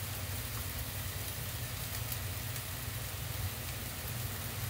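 Fish fillets sizzling steadily as they fry in olive oil in a pan, over a steady low hum.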